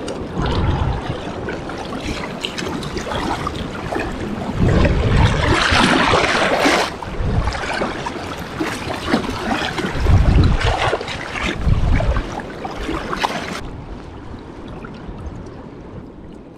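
Water splashing as a hooked American shad is brought to the surface and scooped into a landing net, loudest about five to seven seconds in, over the steady rush of fast river water. Low rumbles of wind on the microphone come around ten to twelve seconds in, and the sound turns quieter and duller near the end.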